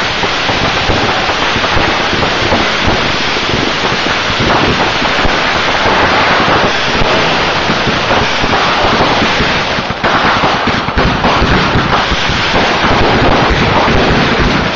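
Fireworks going off in a dense, continuous barrage: many crackles and bangs overlapping without a break, with a brief lull about ten seconds in.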